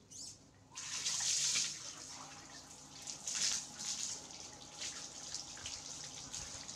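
Hose water splashing and pouring as a baby monkey is washed by hand, spattering onto a plastic stool and wet tile floor. It starts about a second in and keeps changing with each scoop and pour.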